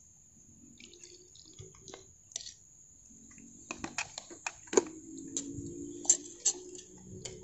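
Metal spoon clinking and scraping against a ceramic plate as a thick chilli spice paste is stirred: a run of sharp ticks in the second half, with a low steady hum joining about halfway.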